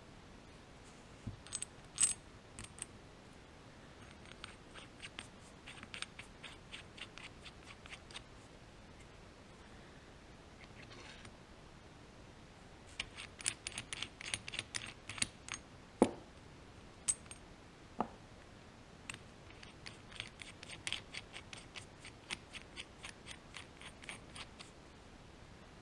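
Small steel parts clicking and tapping against a power steering valve body as a hone guide is fitted into its bore: three runs of quick light clicks lasting a few seconds each, with a few sharper single knocks between them.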